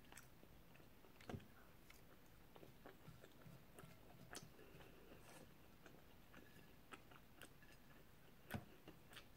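Quiet chewing while eating, with a few sharp clicks of a fork against a plate, three of them louder: about a second in, midway, and near the end.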